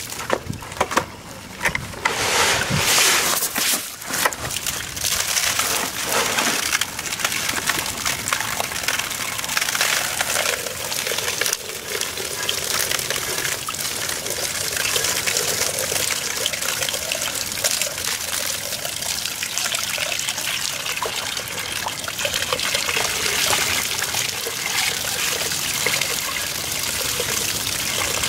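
Water from a garden hose splashing inside the steel housing of an impact mill, washing out packed crushed ore and pouring from the bottom as a muddy slurry. A few knocks sound in the first few seconds.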